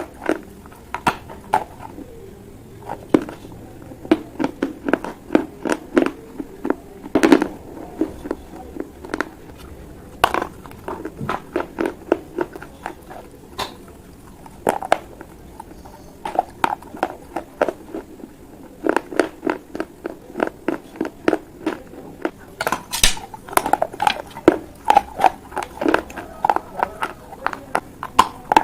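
Close-up crunching and chewing of baked clay pots: sharp, irregular crunching bites with gritty chewing between them, thinning out in the middle and coming thick again later on.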